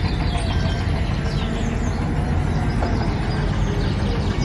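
Caterpillar wheel loader fitted with forklift forks driving, its diesel engine running with a steady low rumble, with a few faint short high chirps above it.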